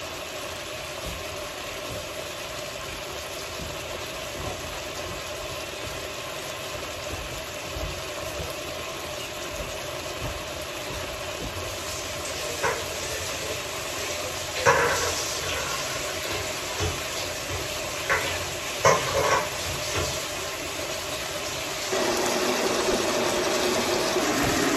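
Chicken wings in oyster sauce simmering in a stainless steel pot: a steady hiss with a few soft pops between about 12 and 20 seconds in. The sound gets louder shortly before the end.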